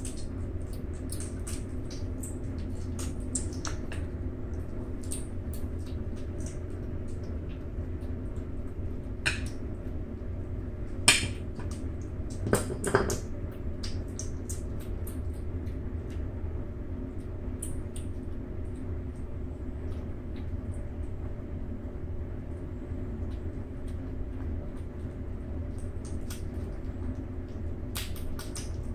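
Two six-week-old kittens eating wet minced food from bowls: a steady run of small clicks from chewing and lapping, with a few sharper knocks against a bowl around the middle, over a constant low hum.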